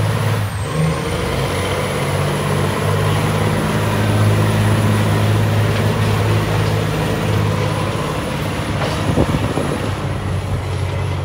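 Log truck's diesel engine working hard under heavy load as it drags a weight-transfer sled, a loud, steady low drone.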